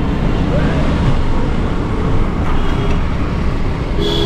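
Steady city road traffic: motor vehicle engines and tyres on a street, as a continuous low rumble.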